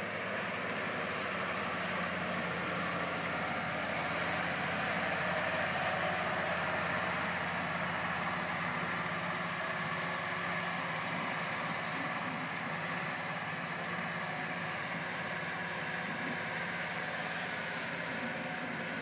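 Evrard self-propelled crop sprayer's engine running steadily as it drives across the field spraying, a little louder about six seconds in and easing off slightly as it moves away.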